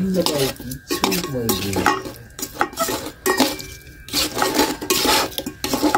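Metal tongs scraping and clinking against a stainless steel bowl as small flour-dusted fish are tossed in their marinade: a run of irregular metallic scrapes and clicks.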